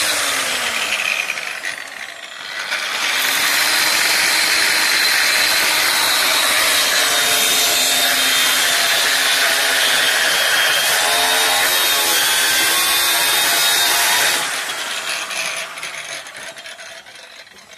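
Electric angle grinder cutting through the bolts on a large electric motor's casing. It cuts in a short first stretch, lifts off for about a second, then cuts steadily for about eleven seconds, its pitch sagging under load. Then it is switched off and spins down.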